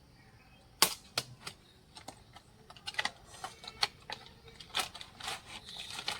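Irregular sharp clicks and taps of a new wiper arm and blade being handled, starting about a second in and coming faster toward the end.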